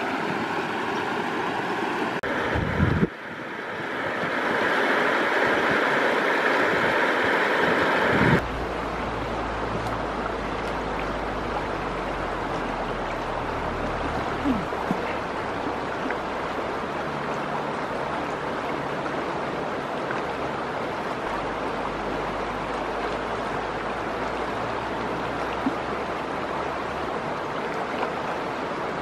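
Flowing river water, a steady rushing hiss, changing abruptly about three and eight seconds in; from then on it is steadier, with a low rumble underneath.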